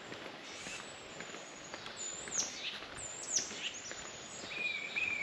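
Woodland birds calling: two quick high notes that each sweep downward, about a second apart near the middle, then a steady high whistled note near the end. Faint footsteps on a dirt trail sound under them.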